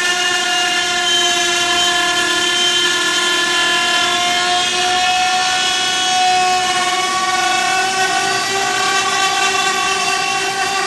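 High-speed power cutting tool running steadily with a high whine as it cuts through a solid fiberglass boat hull, its pitch wavering slightly under load.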